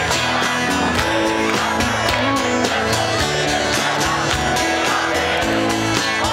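Live rock band playing a song on electric guitars, bass, drums and keyboard, with a steady drum beat.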